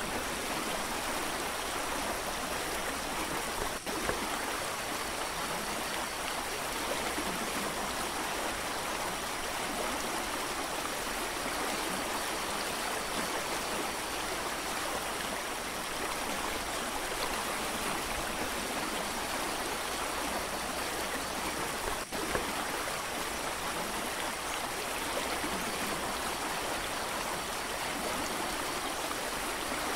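Galatea Creek, a mountain stream, rushing and cascading over boulders in a steady wash of water noise. It dips briefly twice, once about four seconds in and once near twenty-two seconds.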